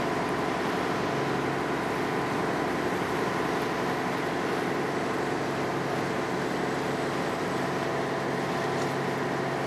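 Small diesel ferry's engine running steadily under way, a constant drone with an even hum.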